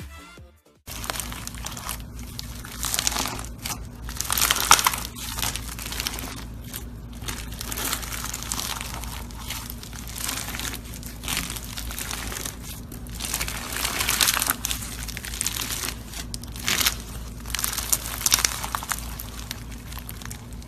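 Slime being squeezed and stretched by hand, giving a run of irregular sticky crackles and squishes over a faint steady low hum.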